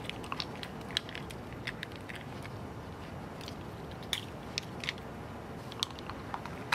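Young raccoons chewing and picking through spilled garbage: scattered small crunches and crackles at irregular intervals over a steady low hiss.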